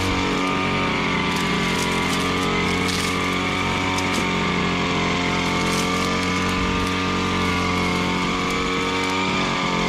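Small engine of a Koshin EP-10P engine-powered sprayer running steadily at a constant speed, driving the sprayer's pump.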